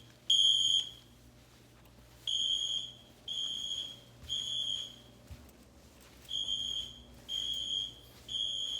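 Siemens ACEND and Edwards Genesis fire alarm horn tones played together through a tablet's speakers, sounding the temporal-three evacuation pattern: high-pitched beeps of about half a second, the last of one group, then two groups of three with a pause between them.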